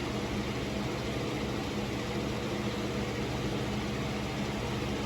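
Holmes HABF-25 20-inch box fan running steadily on medium speed: an even rush of air over a low motor hum.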